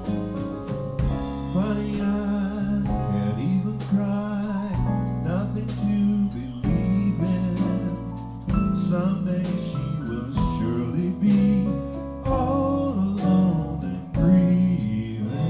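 Live band playing an instrumental break: an electric guitar leads with bent notes over bass guitar and drum kit.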